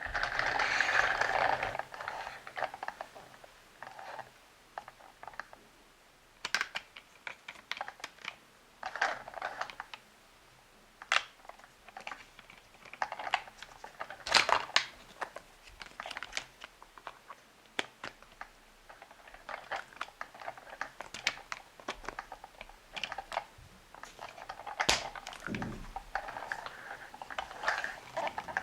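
Plastic toy pieces being handled: irregular clicks and taps with short bursts of rustling.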